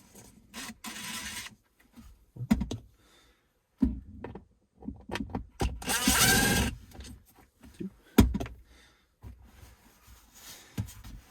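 Cordless drill with a T20 Torx bit running in short bursts to back out screws from plastic console trim: a brief run about a second in and a longer one around six seconds in. Scattered clicks and knocks of the plastic parts and the drill being handled, the sharpest just after eight seconds.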